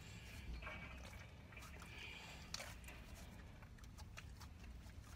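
Faint wet squishing and small clicks of homemade glue slime being kneaded and poked in the hands.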